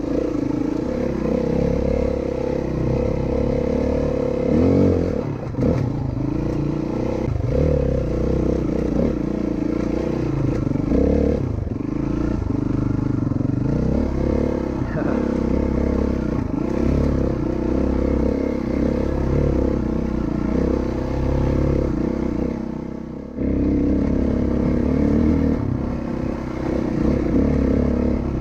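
Four-stroke single-cylinder dirt bike engine running under way, its pitch rising and falling with the throttle. Late on it dips briefly, then picks up again.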